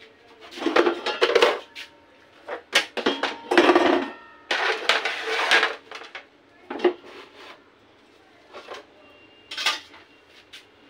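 Dishes and metal utensils clattering off to the side of the stove: irregular knocks and scrapes, some with a short ring, coming thickest in the first half and thinning to a few single clinks near the end.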